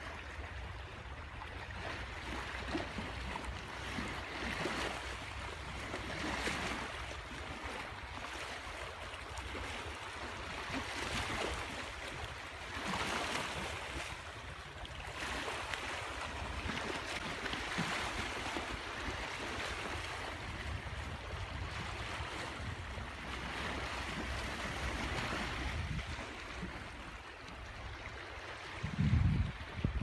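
Small waves washing onto a rocky bay shoreline, in a soft hush that swells and fades every two seconds or so, with light wind. A low buffeting of wind on the microphone comes near the end.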